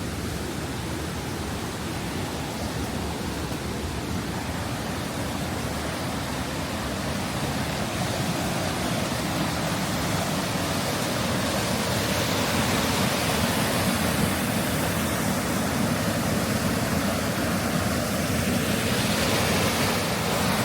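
Steady rush of water from the mountain stream and falls along the trail, growing a little louder about halfway through.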